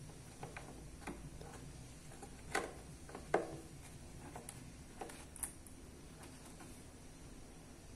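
Scattered light clicks and taps of plastic screwdriver-bit holder strips being handled and pressed into the slots of a moulded plastic tool case, with two louder knocks near the middle.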